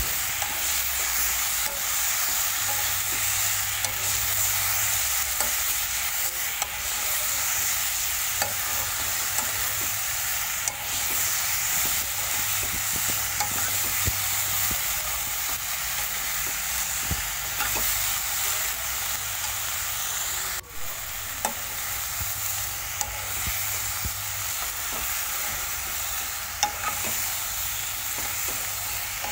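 Chicken, potatoes and onions sizzling as they dry-roast in a non-stick wok with no oil or water, while a steel spatula stirs them, scraping and clicking against the pan. The hiss is steady, broken by many small clicks.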